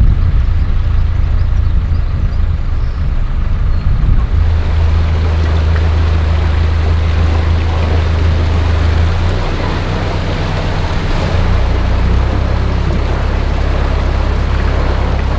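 Narrowboat's diesel engine running under way: a steady low hum with a rushing hiss over it. The engine note shifts up about four seconds in and drops lower about eleven seconds in.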